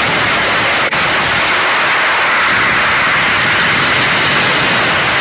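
Loud, steady hiss of static-like noise, with a brief dropout about a second in.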